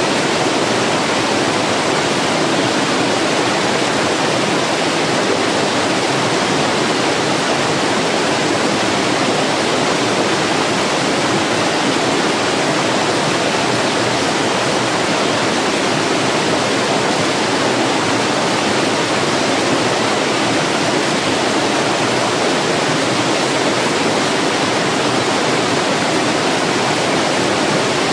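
Water of a rocky stream cascading over boulders in a small falls: a steady, loud rush that does not change.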